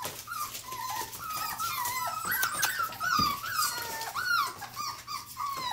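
Four-and-a-half-week-old Norwegian Buhund puppies whining and squealing while they play-wrestle: a near-continuous string of short, high-pitched whines that rise and fall, several a second.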